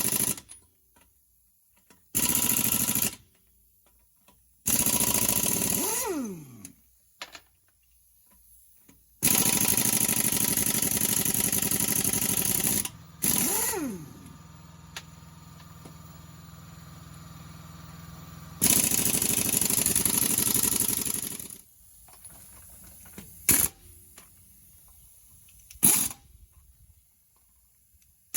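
Power impact wrench running in four separate bursts of one to four seconds, with a falling whine as it spins down after two of them, loosening or running on the lug nuts of a car wheel.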